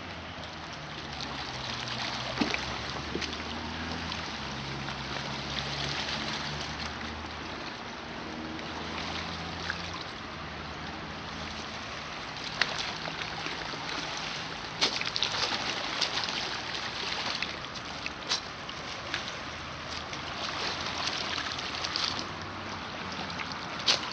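Lakeshore ambience: a steady hiss of wind and small waves lapping at the rocks. A low hum runs through the first half, and scattered sharp clicks and taps come in the second half.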